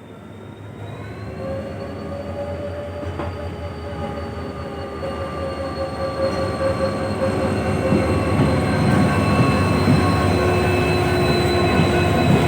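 Indian Railways WDP-4D diesel locomotive and its train approaching, growing steadily louder: a low rumble under several steady high-pitched whining tones.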